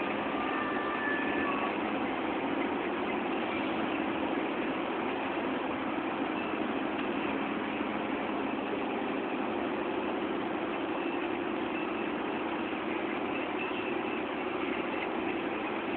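Steady low mechanical rumble with a hiss, even throughout, like an engine running.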